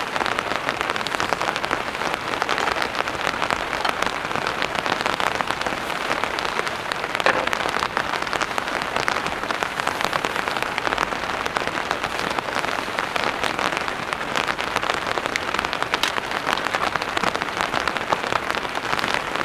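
Heavy rain falling steadily, a dense hiss with many close, fine drop hits and no letting up.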